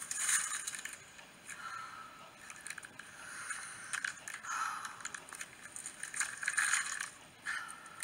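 Irregular rustling and scraping noises in a string of short bursts of uneven loudness.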